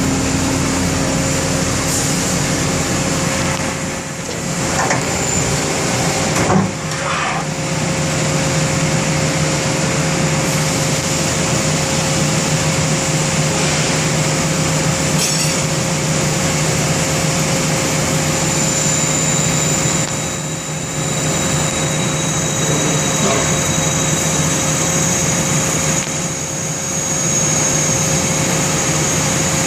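Cincinnati Milacron Avenger 200S CNC lathe running: steady machine noise with a constant low hum and a high whine, and a short knock about six and a half seconds in.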